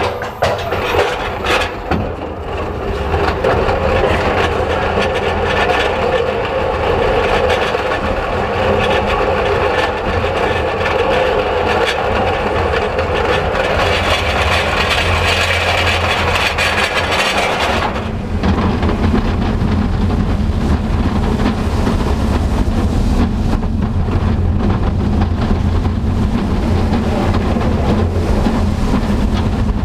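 Intamin steel roller coaster train hauled up its cable lift hill: a steady mechanical whirr and rumble with a humming tone, heard from a camera mounted on the train. About two-thirds in the humming cuts out suddenly as the train crests, leaving the wheels rumbling and clattering on the steel track as it rolls into the curved first drop.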